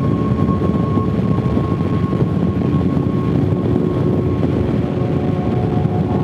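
Harley-Davidson V-twin motorcycle riding at a steady speed, its engine running as a continuous low rumble mixed with road and wind noise. A thin steady whine sits over it and fades out about halfway through.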